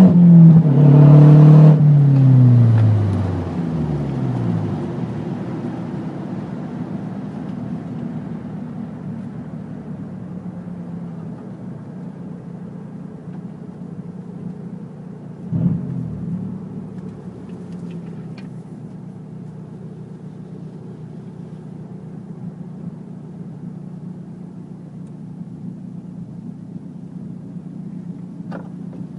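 Mazdaspeed 3's turbocharged 2.3-litre four-cylinder running through an open downpipe with no resonator or mufflers. It is revved at the start, falls back over a few seconds to a steady idle, and gives one brief louder burst about halfway through.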